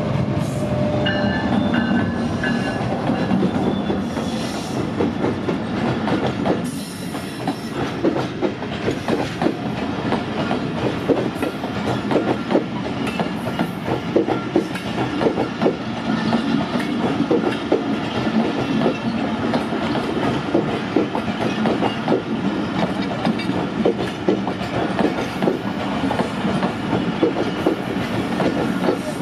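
A Pakistan Railways GEU-40 diesel-electric locomotive passes close by with its engine running. A long rake of passenger coaches then rolls past from about seven seconds in, the wheels clacking rapidly and continuously over the rail joints.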